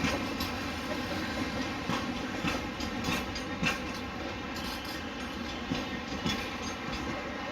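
Container freight train rolling past: a steady rumble of wagon wheels on the track, with irregular clacks as the wheels cross rail joints.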